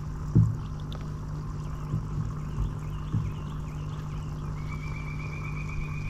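Steady low hum of a boat's electric trolling motor, with a few light knocks of gear being handled in the boat.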